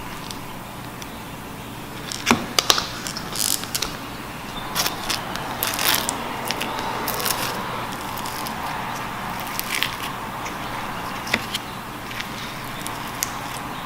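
Slime being squished and stretched by hand: irregular sticky crackles and sharp little pops, densest in the first half.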